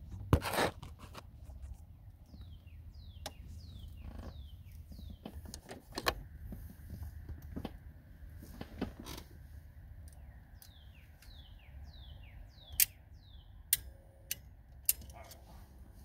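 Engine idling with a low, steady rumble, heard from inside the car on its first run after a timing chain replacement. Sharp clicks and a key jangle come now and then, loudest near the end.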